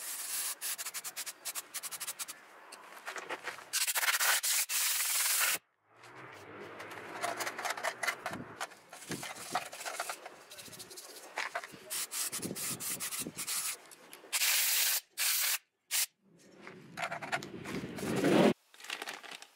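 A brush scrubbing oily motorcycle clutch plates and the clutch basket in a metal tray, a scratchy rubbing with metal parts clinking. It is broken by loud hissing bursts of aerosol cleaner spray, a longer one about four seconds in and shorter ones later.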